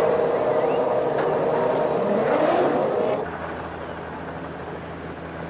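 Formula One race car engines at high revs, with a sweep in pitch a little after two seconds in. About three seconds in, the sound cuts to a quieter, steady hum.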